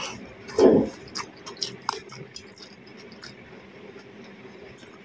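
Close-miked eating sounds of a person chewing a mouthful of rice, steamed fish and vegetables. A loud short thud comes about half a second in, then a quick run of wet clicks and ticks over the next second, after which the chewing goes quieter.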